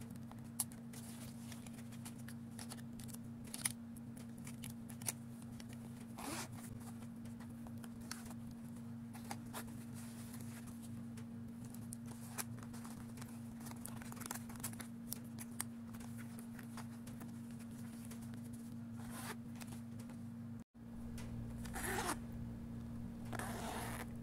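Plastic pens, markers and scissors clicking and rustling as they are packed into a fabric pencil pouch, with a zipper pulled shut in a couple of rasping strokes near the end. A steady low hum runs underneath.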